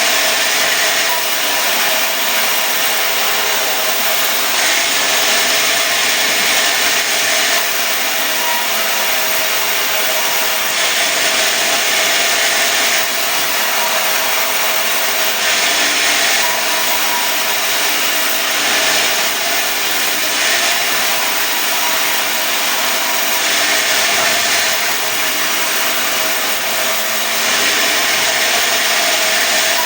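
Sawmill saw blade cutting through a mahogany log into planks. The sound is loud and continuous, with a steady hum and swells every two or three seconds.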